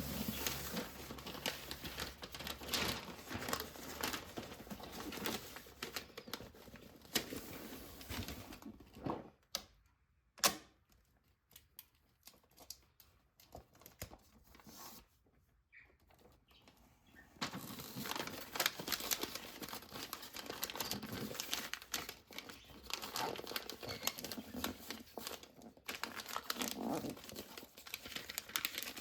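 Packaging being handled, crinkling and rustling, with a quiet pause in the middle broken by a single sharp click.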